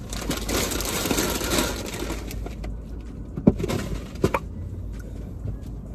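A paper bag rustling and crinkling for about two and a half seconds, then two sharp knocks, the first of them the loudest sound.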